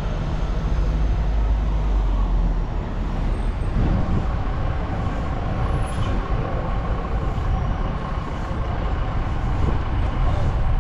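Steady road and engine noise of a car driving slowly along a city street, a deep rumble that is heaviest over the first few seconds.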